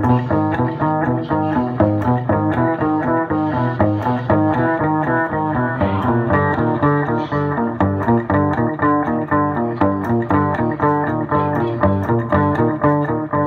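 Live instrumental music with an upright double bass, its notes changing in a steady, quick rhythm.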